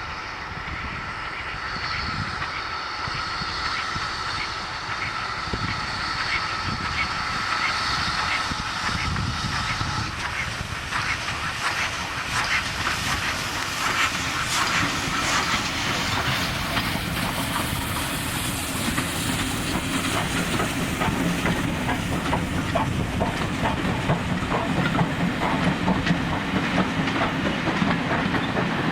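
Steam train coming closer and running past, its wheels clicking over the rail joints amid steam hiss, growing louder. A steady high tone sounds through the first ten seconds, and a low rumble builds over the second half.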